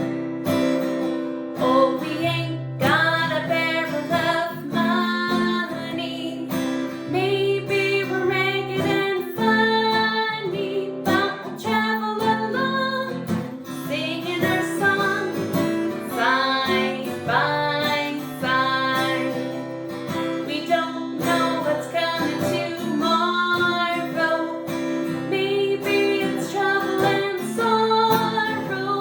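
Strummed acoustic guitar music, with a melody line moving over held lower notes.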